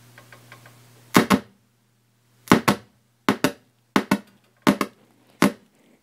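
Pioneer Rando 2000 stereo receiver putting out a low mains hum through its speakers, broken by loud sharp pops, mostly in close pairs about six times, as its circuit board is pressed and released; the hum cuts out after the first pops and comes back faintly. It is the sign of an intermittent connection, which the technician believes is a cold solder joint on a capacitor.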